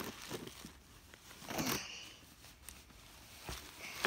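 Soft rustling of a cotton dust bag and gift box as a handbag is pulled out by its chain strap, with one louder rustle about one and a half seconds in.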